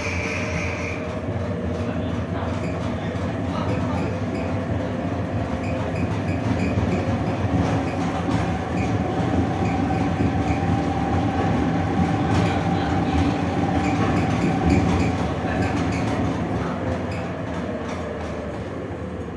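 Düwag GT6 tram running, heard from inside the passenger saloon: a rumble of wheels on the rails with scattered clicks from the track, under a motor whine that slowly rises in pitch as the tram gathers speed and falls again. It eases off and gets quieter near the end.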